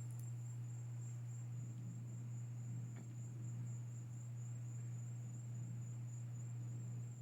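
Crickets singing in a steady, unbroken high trill over a loud, steady low hum.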